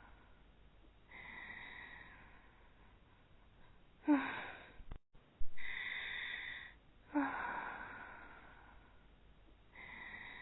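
Animated characters snoring: a sharp, loud snort that drops in pitch, heard twice, alternating with longer, softer airy breaths out.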